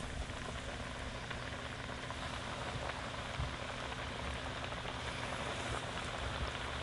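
Breaded crappie fillets deep-frying in hot oil in a wok: a steady sizzle of bubbling oil.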